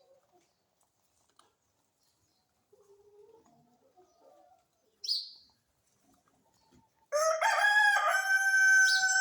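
A rooster crows once, starting about seven seconds in: one loud, stepped call lasting about two and a half seconds. Before it there is faint low clucking and a single short high chirp.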